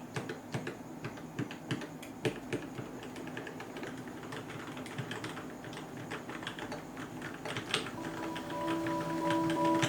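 Keys pressed on a Keychron K6 mechanical keyboard fitted with Gateron Red linear switches that have been lubed and filmed, in quick irregular taps. Background music comes in about eight seconds in.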